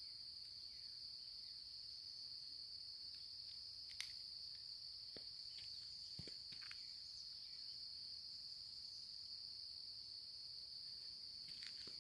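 Steady, high-pitched insect chorus, like crickets trilling, with a few faint ticks.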